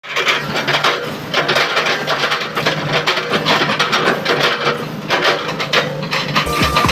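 Komatsu PC200 excavator chipping up an oil palm trunk: dense crackling and crunching of fibrous wood over the steady hum of the diesel engine. Electronic music with a thumping beat comes in near the end.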